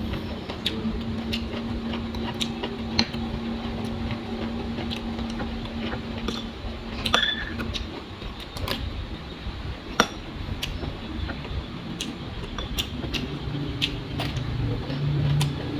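Metal spoon clinking and scraping on a ceramic bowl and plate while eating, in scattered sharp clicks, over a steady low hum that stops about six and a half seconds in.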